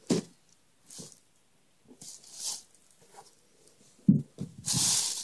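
Handling sounds while lifting a sneaker from its box: a few soft knocks and rustles, a sharp thump about four seconds in, then a black plastic bag crinkling near the end.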